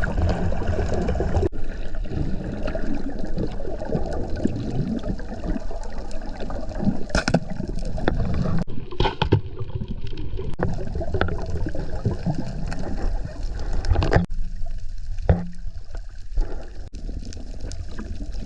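Water gurgling and sloshing close around the microphone, with a few sharp knocks.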